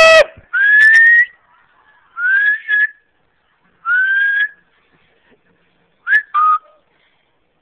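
A person whistling to call a dog: four short upward-gliding whistles about a second and a half apart, the last a two-note whistle that drops to a lower pitch.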